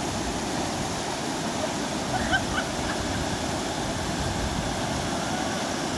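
River water rushing steadily over smooth granite ledges and small cascades, an even, unbroken roar of white water.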